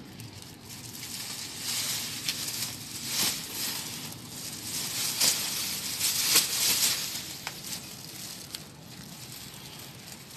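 Rustling, crinkling and crunching as dry grave debris, rotted coffin cloth and a plastic bag are handled by hand, with sharp crackles and clicks through the first part. It dies down to a low rustle about three quarters of the way through.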